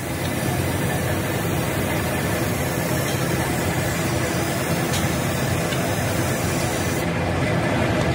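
A steady machine drone, a low hum under an even hiss, unchanging throughout.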